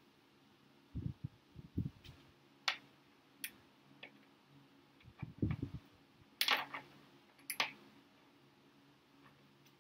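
Hand work on curtain-mounting hardware: scattered sharp clicks and taps, the loudest a little after six seconds in, with two clusters of dull low thumps about a second in and about five seconds in.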